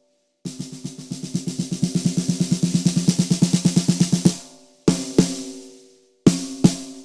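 Sakae 14 x 6.5-inch brass snare drum, tuned fairly loose and undampened, played with sticks. A fast run of strokes builds in loudness for about four seconds, then comes a pair of single hits and, later, another pair, each left to ring out.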